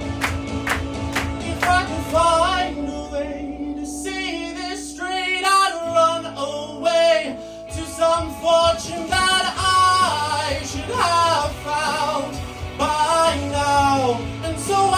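Live band music with a singer holding high, wordless vocal runs over drums. The drums drop out for a few seconds in the middle and come back in.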